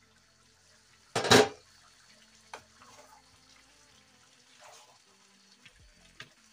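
A loud half-second clatter of an aluminium pot lid being taken off about a second in, then a wooden spatula stirring boiling soup in the pot, with faint bubbling and a few light knocks.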